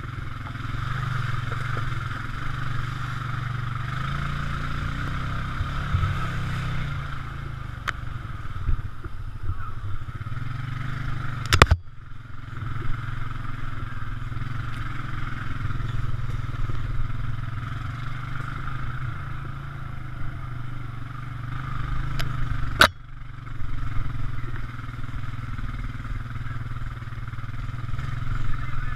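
ATV engine running steadily at trail speed, with the rattle of the machine over rough ground. Two sharp knocks, about 12 and 23 seconds in, each followed by a brief drop in the sound.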